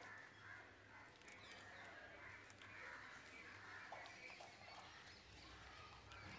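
Near silence, with faint high calls in the background.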